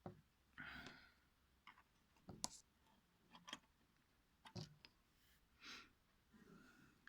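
Quiet, scattered clicks and short rustles of small parts being handled: a handful of sharp ticks, the clearest about two and a half, three and a half and four and a half seconds in.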